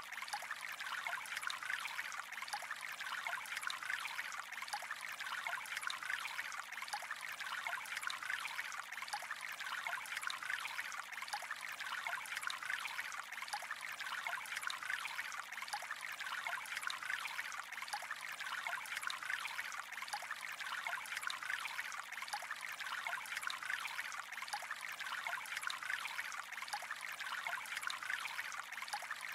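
Water flowing gently in a steady, even trickle, with fine bubbling and splashing detail throughout.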